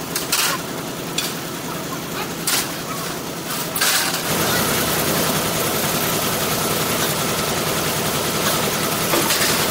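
A few sharp metal clanks from pry bars and steel plates as a heavy machine is levered along on skates. A little over four seconds in, a loud, steady mechanical rumble with a fast, even rattle starts and holds.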